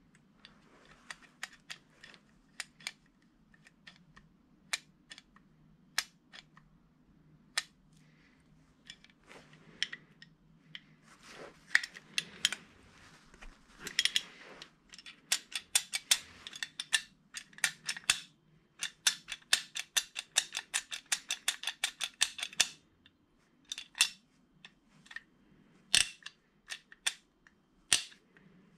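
Alfa Romeo 33 handbrake lever being worked by hand, its ratchet and pawl clicking: scattered single clicks and short runs at first, then a fast, even run of clicks, about eight a second, lasting a few seconds past the middle, and a few louder single clicks near the end.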